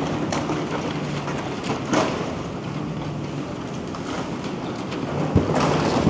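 Demolition excavator's diesel engine running steadily while it pulls at a building, with a few sharp knocks and clatters of falling debris, one about two seconds in and a cluster near the end.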